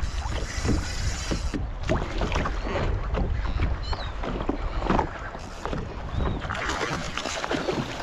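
Wind buffeting the microphone over choppy water slapping against a kayak's hull, with irregular splashes and knocks throughout.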